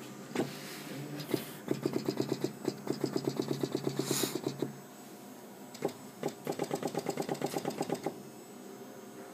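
Pneumatics of a restored Seeburg Model K 58-note player-piano stack firing under vacuum as they are tested by hand. They make two runs of rapid, evenly spaced mechanical strokes at about seven a second, showing the pneumatics collapse and reopen quickly.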